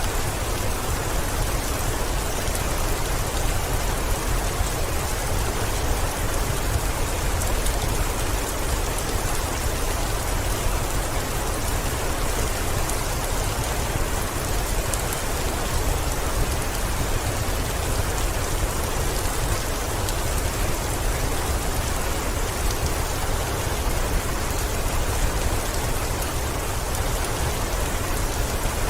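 Heavy rain beating steadily on a window, a dense even hiss with a deep rumble underneath.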